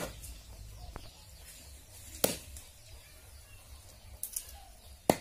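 Large knife chopping raw chicken on a wooden log block: single sharp chops, one at the start and a louder one about two seconds in, with a few lighter knocks near the end.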